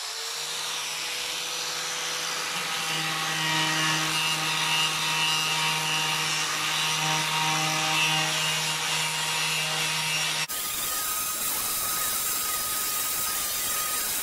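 Angle grinder just up to speed, running with a steady whine as its disc grinds paint and rust off a metal panel edge. About ten seconds in the sound changes abruptly to a harsher, noisier stretch of grinding.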